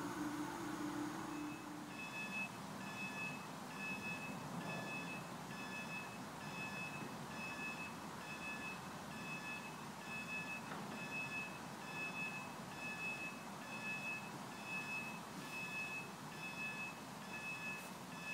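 Level crossing warning alarm beeping in a steady rhythm, about three beeps every two seconds. It starts about two seconds in and stops near the end, once the barriers have come down, warning of an approaching train.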